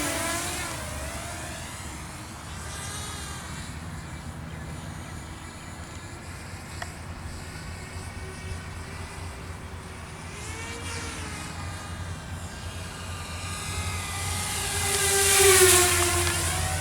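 Walkera F210 racing quadcopter's electric motors and propellers whining in flight, the pitch shifting as the throttle changes. The drone is loud as it moves away at the start, fainter while it flies at a distance, then swells as it passes close about 15 seconds in before dropping off.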